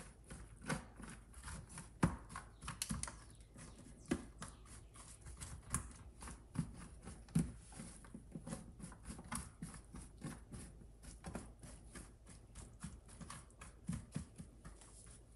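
Boiled cowpea leaves being pulled apart and spread by hand over a paper-lined metal baking tray: faint, irregular soft clicks, taps and rustles, several a second.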